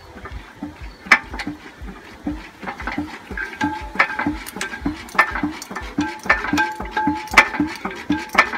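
An Imperial Super Diesel hit-and-miss engine being turned over by hand at the flywheel without firing: a quick, regular knocking with sharp clicks and short squeaks.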